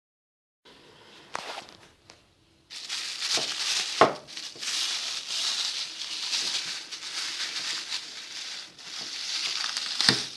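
Cling film crinkling and rustling as it is stretched and pressed over plastic tubs, with a few knocks, the sharpest about four seconds in.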